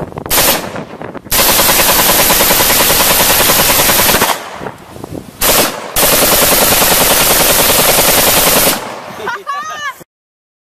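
AK-pattern rifle firing automatic bursts: a short burst, a long burst of about three seconds, another brief burst, then a second long burst of nearly three seconds. The shots run together into a rapid, rippling clatter.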